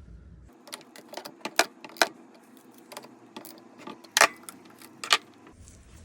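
Metal tools and small engine parts clinking and tapping against each other in an irregular series of sharp clinks, four of them much louder than the rest.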